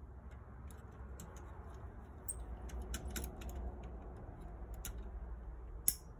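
Small scattered metallic clicks and ticks of a tiny screw being backed out by hand and handled with a small screwdriver on a car stereo's metal chassis and circuit board, with one sharper click near the end.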